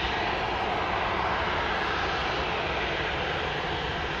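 Boeing 737-800 airliner's CFM56-7B jet engines running steadily as the plane rolls along the runway.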